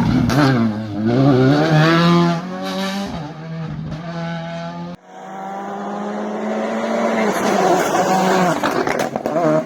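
Rally car engines revving hard through the gears on a special stage, the pitch climbing and dropping with each shift. There is an abrupt cut about halfway through, then another car's engine builds up as it approaches.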